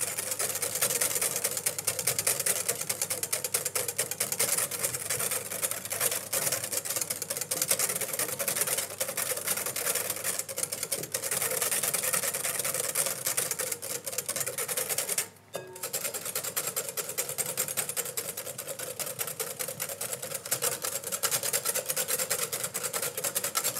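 Wire balloon whisk beating egg yolks in a glass bowl as clarified butter is poured in to emulsify a hollandaise: a fast, steady rattle of the wires against the glass. It stops briefly about fifteen seconds in.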